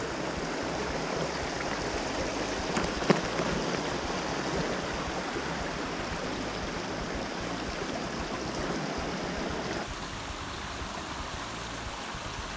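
Steady rushing of a flowing mountain stream, with one sharp click about three seconds in and a slight drop in loudness near the end.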